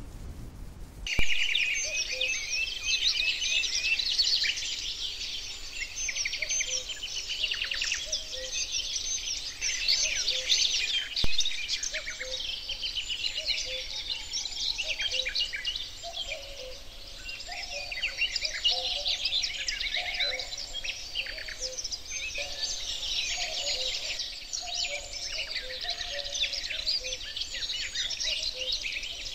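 Many songbirds singing at once, a dense woodland chorus of quick chirps and trills, starting abruptly about a second in.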